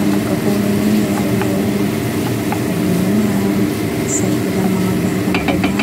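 A steady low hum with a slightly wavering pitch, under light clicks and scrapes of a wooden spatula stirring minced pork, diced carrots and potatoes in a pan, with a quick run of clicks near the end.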